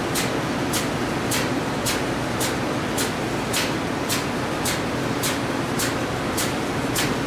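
Steady machinery drone of a ship's engine room, with a sharp hissing pulse repeating regularly a little under twice a second.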